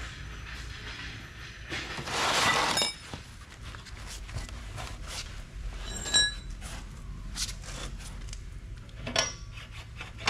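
Metal parts and tools handled while the rear wheel and axle spacers of a motorcycle are taken off: a scraping rush about two seconds in that ends in a ringing clink, then a few more short metallic clinks.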